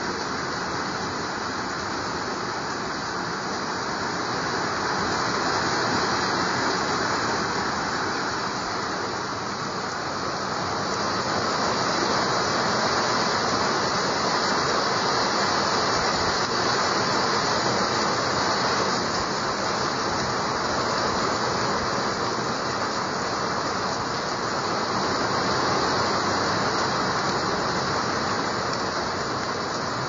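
Heavy downpour in strong wind: a steady, even hiss of rain that swells and eases a few times.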